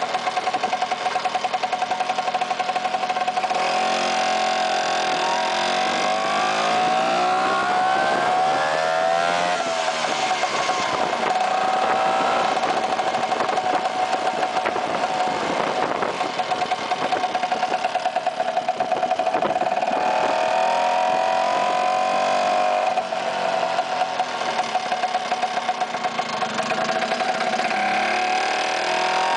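Vespa PX scooter's single-cylinder two-stroke engine running on the move. It climbs in pitch under acceleration for several seconds, drops sharply at a gear change about ten seconds in, holds a steady drone, and rises again briefly a little past the middle.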